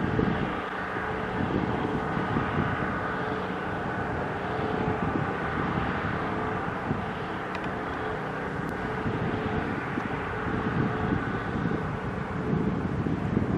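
Wind buffeting the camera microphone over a steady outdoor hum carrying a faint steady tone.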